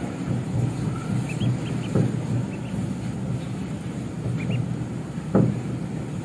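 Baby chicks peeping: short, high, rising chirps in small groups of two or three. Underneath runs a steady low rumble, and there are two dull thumps, the louder one about five seconds in.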